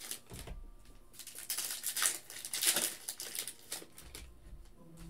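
Plastic wrapper of a trading-card pack crinkling and tearing as it is pulled open by hand, in several short bursts, loudest about two seconds in.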